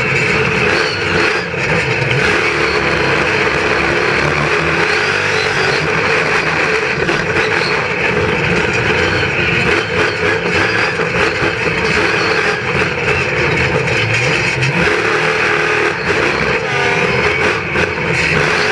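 Monster truck engine running hard at high revs through a freestyle run, heard from inside the cab. It is loud without a break, with many quick rattles and knocks mixed in.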